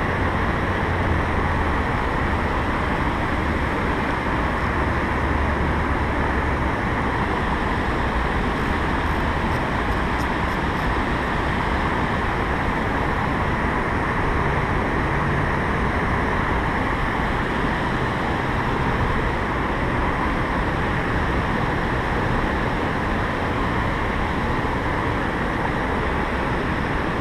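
Steady rush of whitewater churning in the river below a dam.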